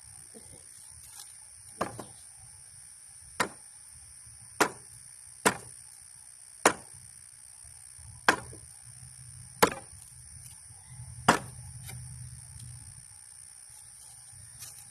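Eight sharp blows struck on a wooden board of a bench swing, irregularly spaced about one to one and a half seconds apart, as the stuck board is knocked loose.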